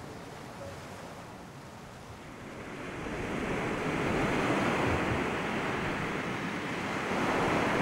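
Sea surf: waves breaking and rushing in. The wash is quieter at first, swells up about three seconds in, and builds again near the end.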